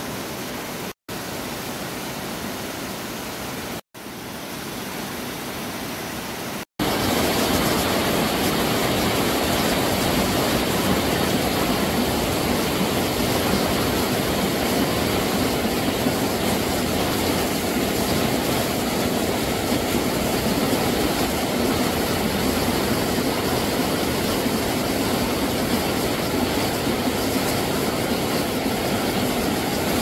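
Steady rushing of a mountain stream. Three brief dropouts come in the first seven seconds, and the rushing is a little louder after them.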